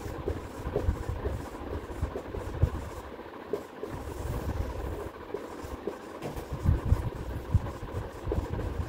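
Marker writing on a whiteboard: a string of short taps and strokes as digits and words are written, over a steady low background rumble.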